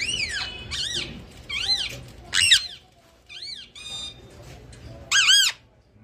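Parakeet squawking: a string of short, sharp arched calls, about one a second, the loudest about halfway through and near the end.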